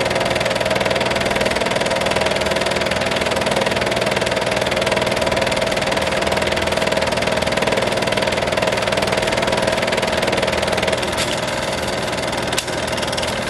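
Film projector running: a steady mechanical whir and hum. It drops a little near the end, with a single sharp click.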